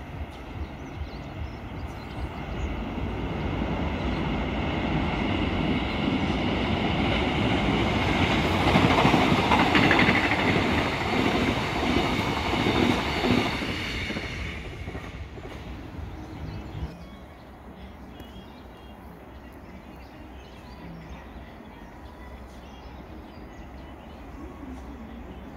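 A passenger train passing on an electrified line, its wheels running on the rails. It grows louder as it approaches, is loudest about 8 to 13 seconds in, and fades away by about 17 seconds.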